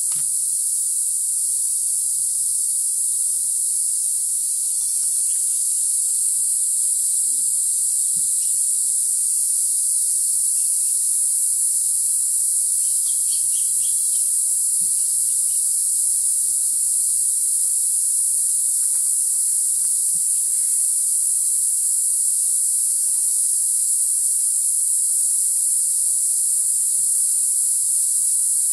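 Steady high-pitched drone of a dense jungle insect chorus, with a few faint bird chirps over it, the clearest about halfway through.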